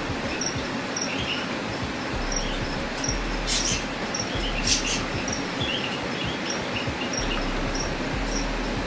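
Steady room noise with small, high, insect-like chirps repeating about twice a second, and two short rustles a little past the middle.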